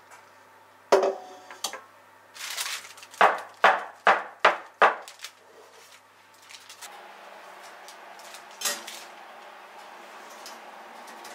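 A square cake pan of sponge batter is rapped down on the counter five times in quick succession to knock the air bubbles out of the batter, after a first knock and a brief rustle of the parchment lining. From about seven seconds in there is a steady rushing noise from the open, preheated oven, with a single clank of metal near nine seconds as the pan goes onto the wire rack.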